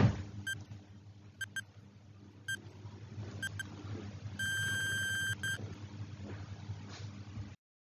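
Countdown timer sound effect: short electronic beeps, single and paired, about once a second, then one long beep about four and a half seconds in as the timer runs out. A faint low steady hum runs under them and cuts off near the end.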